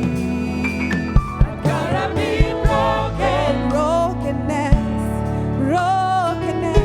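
Live gospel worship music: singers with a choir over sustained keyboard chords and occasional drum hits.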